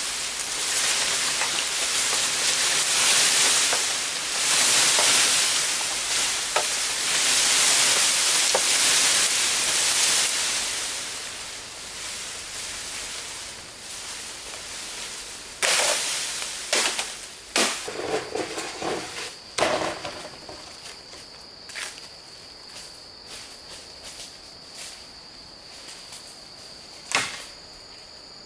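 Wood being worked by hand with long rasping strokes for about ten seconds, then fading. After that come scattered sharp knocks of wood, and a steady high-pitched tone joins partway through.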